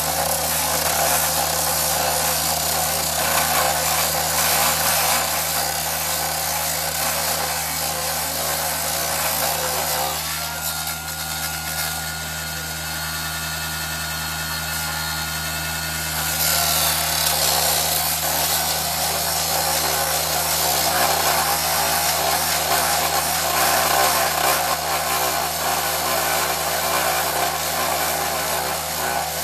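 Abrasive rail saw running at speed, its cut-off wheel grinding through a steel rail with a harsh, hissing grind. About ten seconds in the grinding eases to a steadier whine for some six seconds, then the full grinding comes back.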